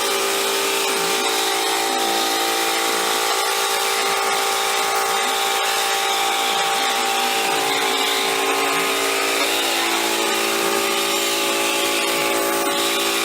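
Steady, unbroken buzzing hum of a running electric motor, such as a power tool's.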